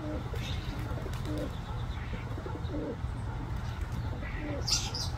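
A dove cooing, four short low coos spaced about a second and a half apart, with a few high bird chirps, the loudest near the end.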